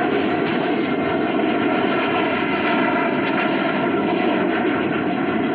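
Aircraft engine sound effect: a steady drone of held tones over a rushing noise.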